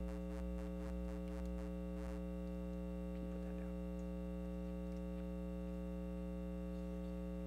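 Steady electrical mains hum, a low buzz with many evenly spaced overtones that holds at an even level throughout.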